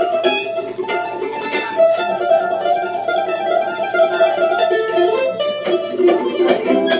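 Mandolin played solo: an instrumental tune of quickly picked, ringing notes.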